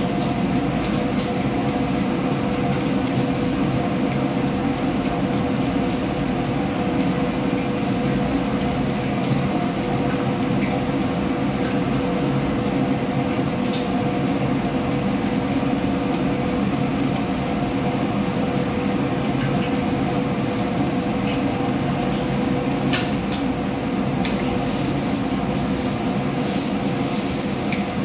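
Steady roar of commercial gas wok burners and the kitchen exhaust hood fan, with a constant hum. Near the end a metal ladle clinks against the wok a few times.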